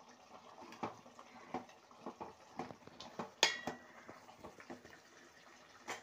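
A spoon stirring thick curry in a metal pot, knocking and scraping against its sides, with one louder ringing clang of metal on metal about three and a half seconds in.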